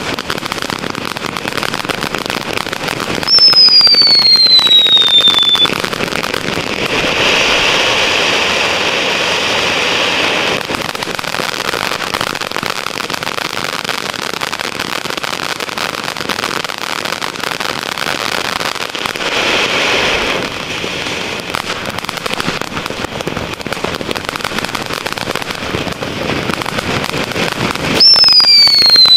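Phantom Fireworks New York Harbor Fountain, a ground fountain firework, burning with a steady hissing, crackling spray of sparks. Twice a whistle sounds, falling in pitch over about two seconds: once about three seconds in and again near the end. These are the loudest moments.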